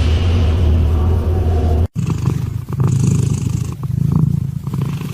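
A steady low hum that cuts off abruptly about two seconds in, then a cat purring loudly and close up, each purr swelling and fading in cycles of about a second and a half.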